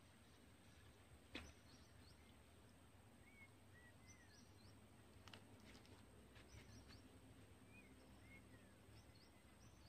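Near silence: faint outdoor ambience with a few short, faint bird chirps that rise and fall, a handful of soft clicks, and a thin steady high whine.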